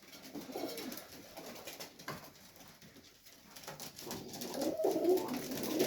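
Serbian Highflyer pigeons cooing: soft at first, then louder and more continuous over the last two seconds.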